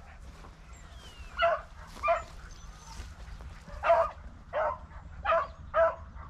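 Beagle giving tongue: a broken run of six short, high yelps, two early on and four quick ones after a pause, the voice of a scent hound working a rabbit's trail.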